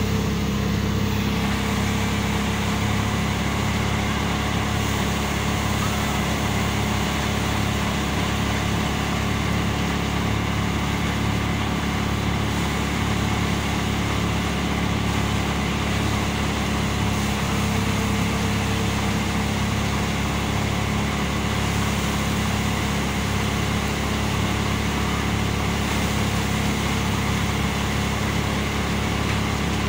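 Mechanical threshing machine running steadily, a constant engine drone as mustard plants are threshed.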